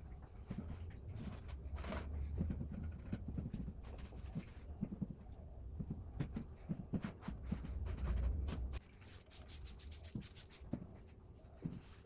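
Irregular light knocks and scuffs from handling and cleaning a dusty old wood lathe, over a low rumble that stops abruptly about nine seconds in, followed by a quick run of high clicks.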